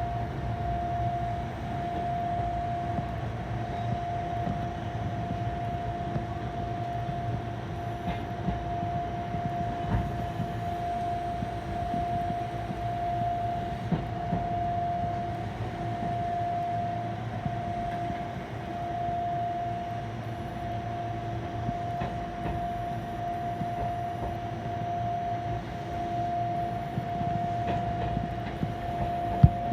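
Fukui Railway train running slowly, a low rumble from the running gear with a steady mid-pitched whine over it. There is a single sharp click near the end.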